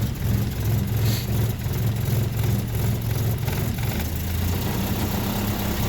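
1961 Land Rover Series II's 2.25-litre four-cylinder petrol engine running under light load as the truck moves slowly in low-range first gear on its newly fitted gearbox. The engine note drops about four seconds in.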